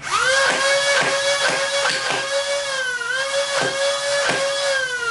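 Flywheel motors of a modified Nerf Rapidstrike dart blaster spinning with a steady high whine while it fires foam darts one at a time in single-shot mode, each shot a sharp clack from the pusher. The flywheels wind down with a falling whine near the end.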